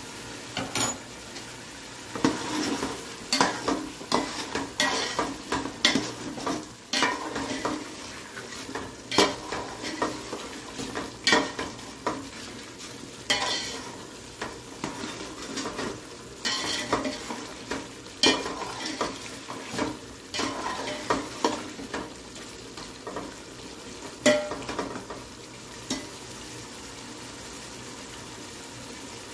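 White plastic spatula stirring mutton curry in a metal cooking pot, with irregular scrapes and knocks against the pot over a steady sizzle of the simmering curry. The stirring stops a few seconds before the end, leaving only the sizzle.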